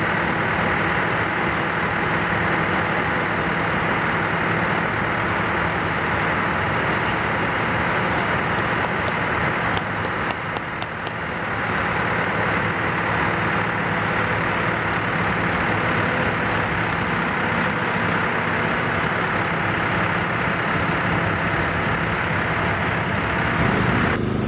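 Heavy diesel engines running steadily, with a brief dip and a few clicks about ten seconds in.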